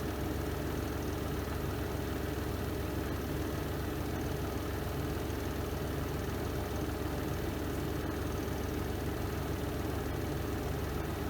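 Renova semi-automatic twin-tub washing machine on its spin cycle: the spin drum's motor runs with a steady low hum and whir that does not change.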